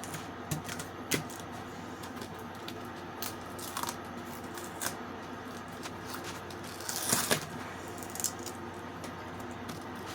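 Hands handling Velcro strips on a canvas: scattered light clicks and taps, and a short ripping rasp about seven seconds in, over a steady low hum.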